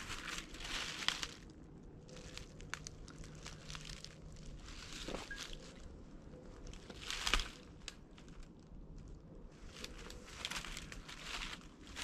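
Footsteps crunching on dry leaves and brushing through undergrowth, in irregular bursts of rustling with pauses between them; the loudest comes about seven seconds in.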